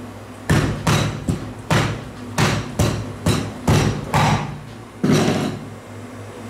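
Meat cleaver chopping through a crocodile tail onto a plastic cutting board: about ten heavy chops in quick succession, the last coming about a second after the rest.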